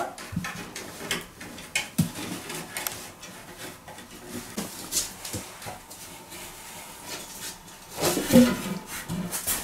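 A raccoon clambering on wooden wall bars: scattered knocks and scratches of its claws on the wooden rungs and boards. A louder scuffle with a short animal call comes about eight seconds in.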